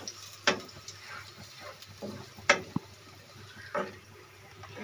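Wooden spatula stirring and scraping onions and green chillies in a non-stick kadai, with three short knocks against the pan about half a second, two and a half and nearly four seconds in, over a faint sizzle of frying.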